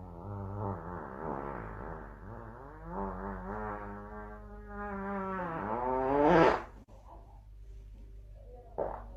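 A long drawn-out vocal call, about six seconds long, with a wavering pitch that sweeps sharply upward at the end, followed by a short burst of sound near the end.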